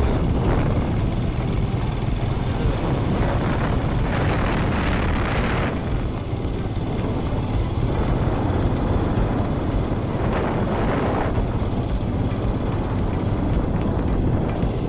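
Motorcycle engine running steadily while being ridden along a road, heard from the bike. A rushing noise swells twice, about four and ten seconds in.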